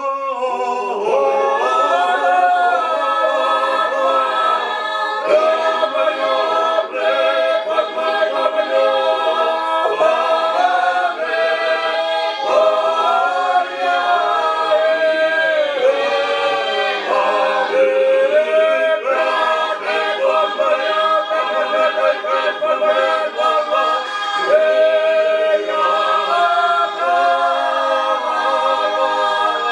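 Unaccompanied choir singing in harmony, several voices holding long notes together.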